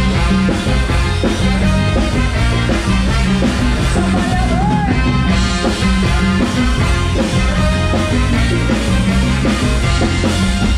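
Live Thai ramwong dance band playing an instrumental passage between sung lines: drum kit, congas and keyboard keeping a steady dance beat under a melody line.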